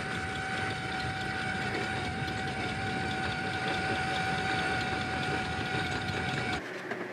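A motor running steadily with a constant high whine over a rumbling hiss, cutting off abruptly about six and a half seconds in.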